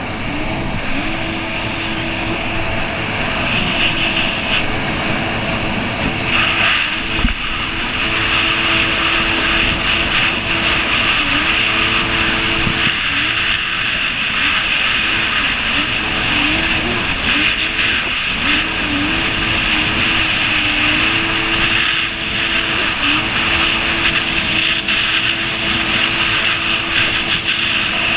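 Jet ski engine running at speed, a steady drone whose pitch dips briefly several times as the throttle eases, under a constant rush of wind and water.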